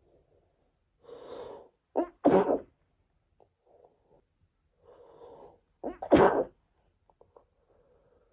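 A woman sneezing twice from a cold, about two seconds in and again about six seconds in. Each sneeze is preceded by an audible breath in.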